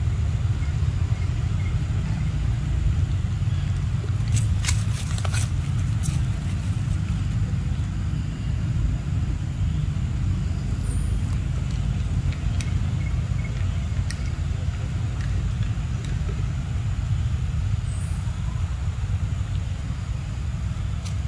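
Steady low rumble throughout, with a few faint clicks about four to six seconds in.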